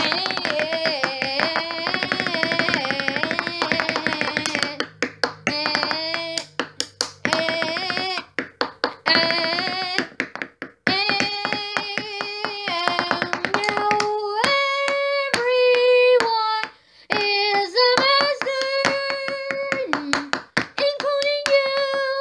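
A high voice singing a wordless tune in long held notes that step up and down, over fast, repeated clicks or claps.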